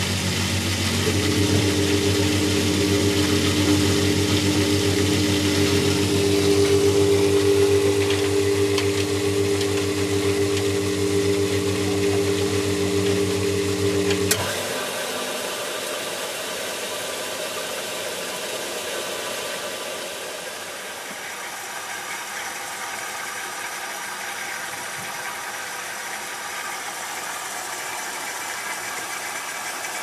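Philips SL 202 front-loading washing machine running, heard at its motor and belt drive: a steady hum with a higher, even whine. About halfway through it drops abruptly, with a click, to a quieter, even running noise.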